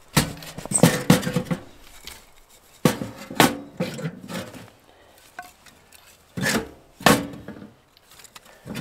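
Split firewood being laid into a small metal wood stove's firebox: pieces of wood clunking against each other and the stove's metal walls, with a slight metallic ring. The knocks come in a few short bunches with pauses between.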